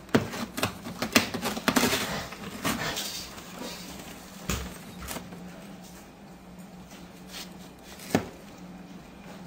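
Cat pawing and biting at cardboard box flaps, making the cardboard rustle and knock: a quick flurry of taps and scrapes over the first three seconds, then a few single knocks, over a faint steady hum.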